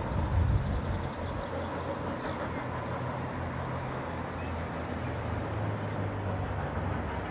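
Distant narrow-gauge passenger train running along the line, heard as a steady low rumble with no clear exhaust beats.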